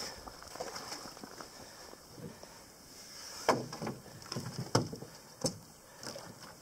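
A canoe swung off a portager's shoulders into shallow lake water, with wading splashes. Three sharp knocks and splashes come from about three and a half seconds in as the hull comes down onto the water; the first two are the loudest.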